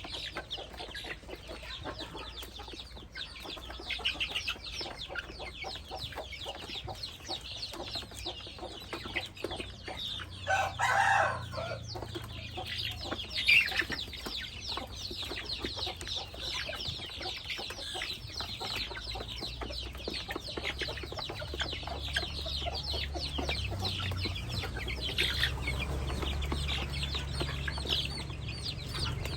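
A flock of young chickens cheeping and peeping continuously, with a louder, lower call from one bird about eleven seconds in. A low hum builds underneath in the second half.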